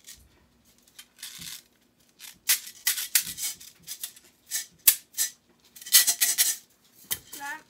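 Small plastic fidget toys rattling and clicking as they are turned and shaken in the hands, in several short bursts.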